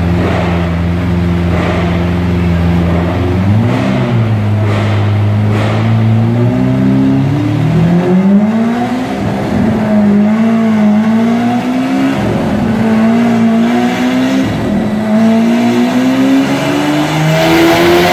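Lamborghini Aventador LP700-4's V12 engine through an Fi Exhaust valved catback with quad tips: idling steadily for a few seconds, then blipped and revved over and over, its pitch rising and falling, with a long climbing rev near the end.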